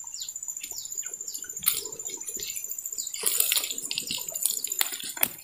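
Riverside outdoor sound: birds chirping in short falling calls over a steady high-pitched whine, with a few scattered knocks and rustles.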